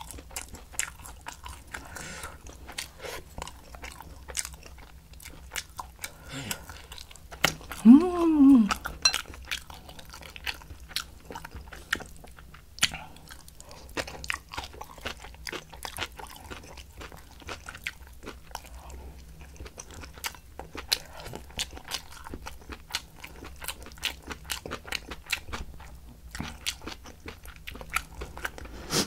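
Close-miked chewing and crunching of spicy napa cabbage kimchi and rice, with many small crackles and clicks, including chopsticks against a ceramic rice bowl. About eight seconds in, one short voiced sound rises and then falls in pitch, the loudest moment.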